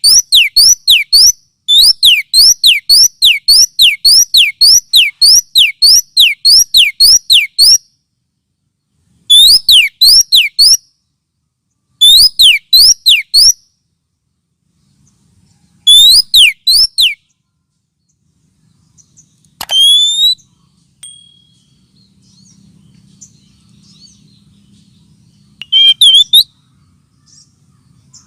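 Oriental magpie-robin (kacer) calls played as a trapping lure: loud runs of quick sweeping whistled notes, about three a second, in several bursts, then a few scattered single calls near the end.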